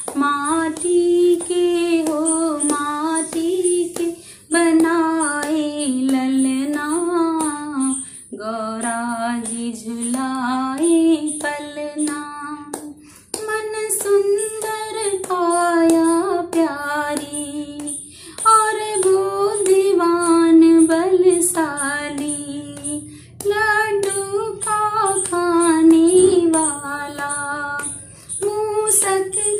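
A woman singing a Hindi devotional bhajan solo, in phrases of about five seconds with short breaks between them, over a steady high ticking beat.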